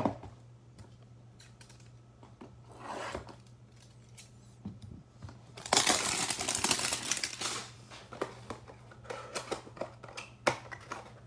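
Scissors snipping and clicking as a cardboard trading-card hanger box is cut open, with its packaging handled. The loudest part is a scratchy rustle of cardboard and wrapper lasting under two seconds, about six seconds in.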